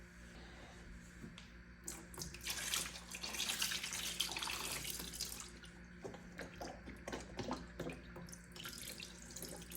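Water running from a tap into a sink and splashing, starting about two seconds in and easing off past the middle into intermittent splashes and knocks.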